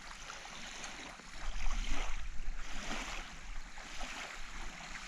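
Small waves washing in and out on a sandy lake shore, swelling and falling about once a second, with a low rumble of wind on the microphone.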